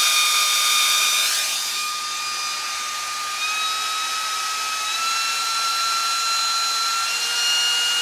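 Hair dryer's small DC motor and impeller fan running, a steady whine with a rush of air that is strongest in the first couple of seconds. The whine rises slowly in pitch as the voltage is turned up toward 14 volts.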